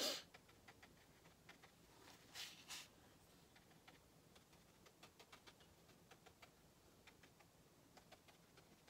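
Faint, irregular light ticks of a watercolor brush dabbing on cold-pressed cotton watercolor paper, with two short brushing swishes a few seconds in; a brief louder noise comes right at the start.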